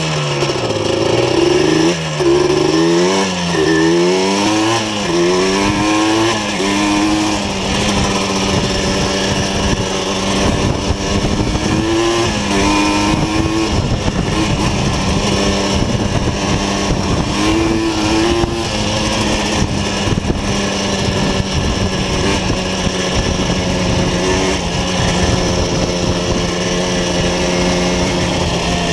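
Two-stroke 200cc Yamaha Blaster quad engine with an aftermarket full exhaust, revving up and down about once a second for the first several seconds as the throttle is worked, then running at a steady pitch at cruising speed.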